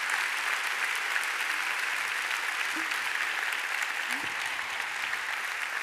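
Large audience applauding steadily, with a few brief voices calling out from the crowd.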